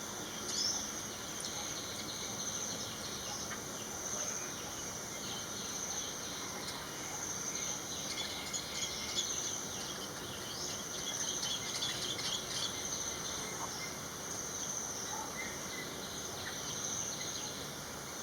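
A steady, high-pitched insect chorus trilling without a break, with scattered short bird chirps in the middle.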